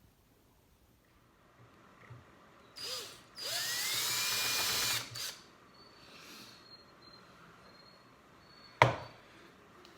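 Small high-speed rotary tool (Dremel) with a brush attachment, blipped briefly and then run for about a second and a half, its whine rising as it spins up before it cuts off. A single sharp click comes near the end.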